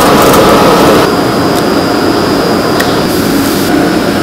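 Steady roar of gas wok burners on a commercial kitchen range, dropping a little in level about a second in, with a few faint clicks.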